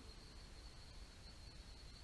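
Near silence outdoors: a faint, steady high-pitched insect drone over low background hiss and rumble.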